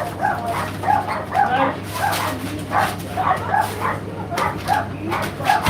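Indesit IDC8T3 condenser tumble dryer running, its drum turning with a rhythmic squeak about three times a second over a steady motor hum.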